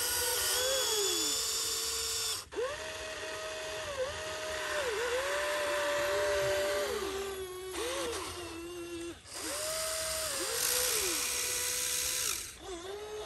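Huina RC excavator's small electric motors whining as the boom, arm and bucket move, the pitch sliding up and down and jumping with each new movement, with a few short breaks between movements.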